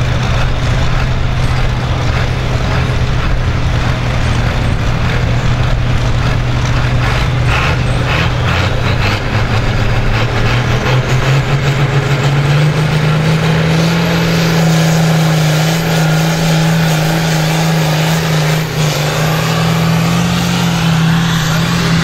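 John Deere pulling tractor's diesel engine running steadily, then about halfway through revving up to a higher note and holding it while black smoke pours from the stack: the engine is put under full throttle to pull the sled.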